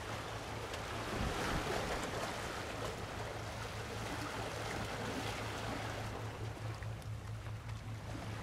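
Wind on the microphone over the wash of the sea, with a steady low drone underneath.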